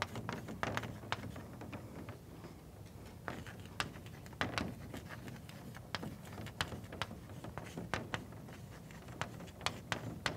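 Chalk tapping and scratching on a blackboard as words are written out: a string of sharp, irregular taps, some coming in quick runs.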